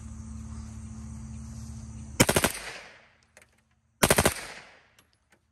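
H&K MP5 submachine gun firing on full auto: two short bursts of several rounds each, about two seconds apart, each trailing off in a brief echo.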